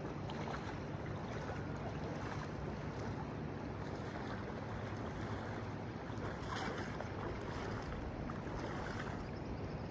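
Steady rush of flowing river water, with wind noise on the microphone.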